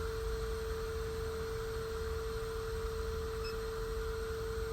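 A steady single-pitch electronic tone, unchanging throughout, over a low electrical hum from the repair-bench equipment.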